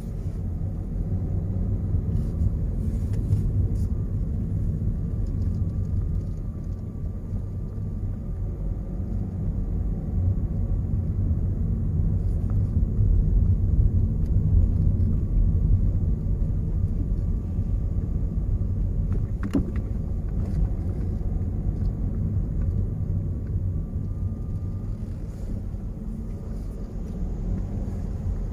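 Car driving, heard from inside the cabin: a steady low rumble of engine and tyre noise, swelling slightly midway, with a single faint click about two-thirds of the way through.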